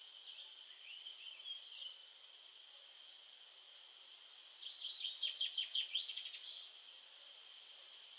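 Birds chirping over a steady high insect drone; about four and a half seconds in, a bird gives a quick run of sharp notes lasting about two seconds.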